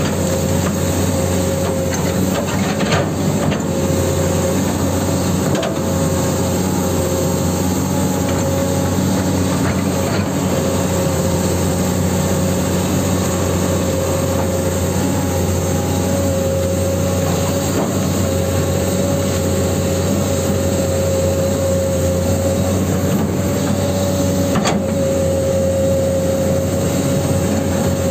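Huina 1594 RC excavator's electric motors and gearboxes whirring steadily as it digs and moves, with a constant high-pitched whine over a low drone and a few faint clicks.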